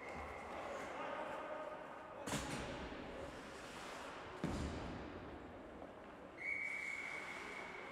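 Ice hockey referee's whistle: a long steady blast fades out about half a second in, and another begins about six and a half seconds in. Between them come two sharp knocks, about two and four and a half seconds in.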